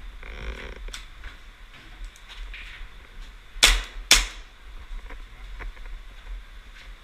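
Airsoft gun firing two sharp shots about half a second apart, midway through, among light clicks and knocks of gear and movement.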